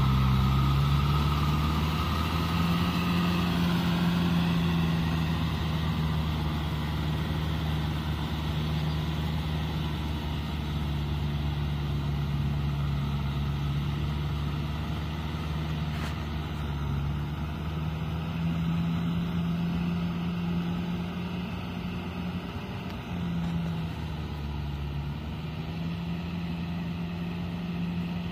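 Kubota tractor's diesel engine running steadily under load as it pulls a rotary tiller through flooded mud. Its pitch wavers a little, and the sound grows gradually fainter as the tractor moves away.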